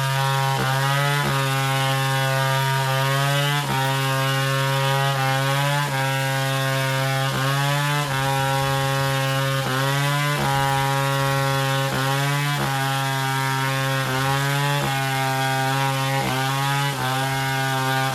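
Chainsaw running steadily while cutting wood, its engine pitch dipping and rising again about once a second as it takes and sheds load.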